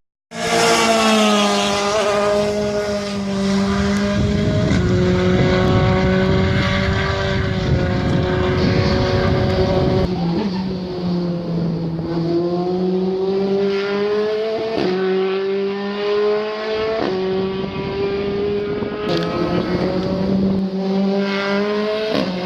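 Formula 3 racing car's four-cylinder engine running hard at high revs. Its pitch climbs steadily and then drops sharply several times as it shifts up through the gears.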